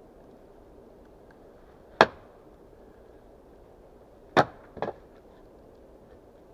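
Axe chopping wood: one sharp strike about two seconds in, then two more close together near the end, the second of them lighter.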